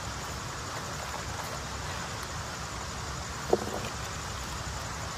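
Steady rushing of a flowing stream, with one brief sharp sound about three and a half seconds in.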